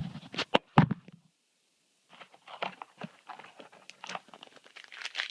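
A few sharp clicks of handled cards, then, after a short gap, the crackling crinkle of a foil trading-card booster pack being torn open and handled.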